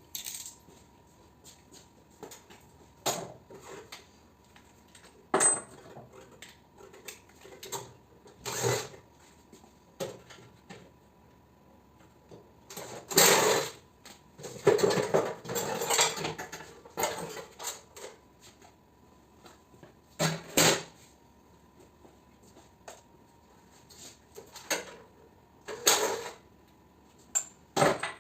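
Irregular metal clanks, clinks and rattles of hand tools and parts being handled while a mini-split air conditioner is dismantled for scrap, busiest near the middle. A faint steady hum runs underneath.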